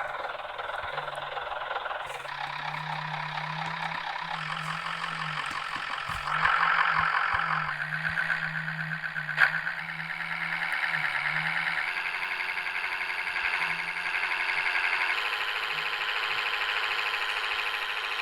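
Interior noise of a MAZ 105 articulated diesel city bus on the move: a steady engine drone under a dense rushing of road and drivetrain noise that rises in steps as the bus picks up speed, with one sharp knock about nine seconds in.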